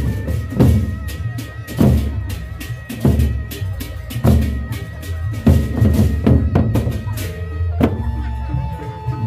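Gendang beleq ensemble playing: large Sasak barrel drums struck in a driving rhythm, with heavy strokes about every second and lighter beats between, over a steady high ringing tone. About eight seconds in, the drumming thins and a held tone comes in.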